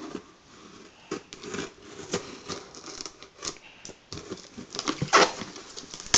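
A shipping package being handled and pulled at: irregular crinkling, scraping and tearing sounds, with a louder burst about five seconds in.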